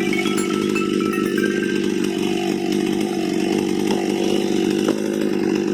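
Two-stroke chainsaw running steadily at an even pitch while sawing a fallen oak log into planks.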